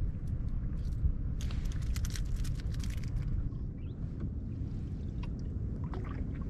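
Water splashing and trickling around a canoe on a river, with a busy patch of splashes and clicks from about one and a half to three seconds in, over a steady low rumble.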